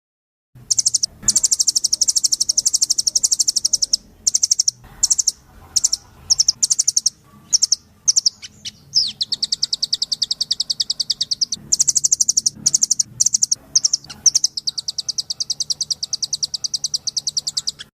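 Recorded songbird song: long, rapid, high-pitched trills of many even pulses a second, in phrases a few seconds long. Short chips and a quick downward-sliding note come between them near the middle.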